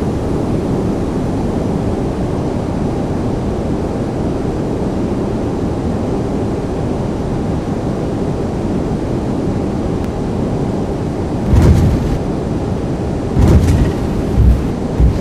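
Airbus A320 on its landing rollout: a steady rumble of wheels, engines and airflow. Heavy low thumps come about eleven seconds in and several more near the end.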